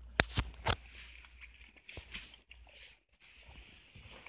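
Handling noise: three sharp clicks or knocks in the first second, then faint scattered taps and rustling as the camera and nearby objects are moved about.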